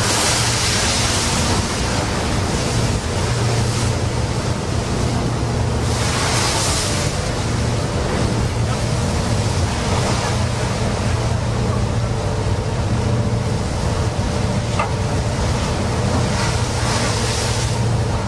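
Storm at sea: wind buffeting the microphone and heavy waves crashing, over the steady low drone of a boat's engine. Surges of hissing spray or gusts come about a second in, around six seconds in, and near the end.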